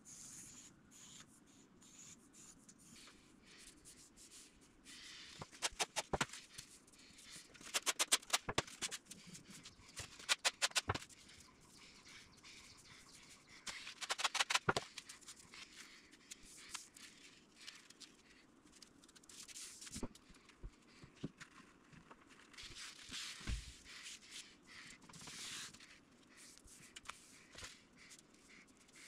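Handling sounds on a workbench while balsa sheets are laid out and lined up: four short bursts of rapid clicking in the first half, then a few single taps and faint rustling.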